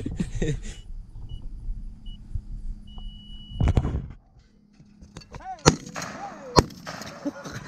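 Two shotgun shots at a thrown clay target, a little under a second apart, near the end. A short dull thump comes about four seconds in.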